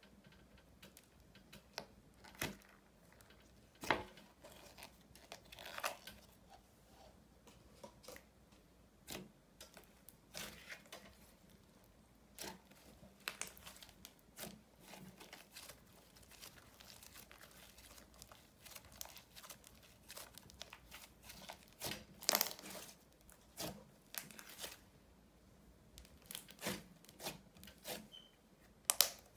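Thick slime mixed with candy sprinkles being poked, pressed and kneaded by hand, giving irregular soft crackles and pops, with a busier stretch about two-thirds of the way through.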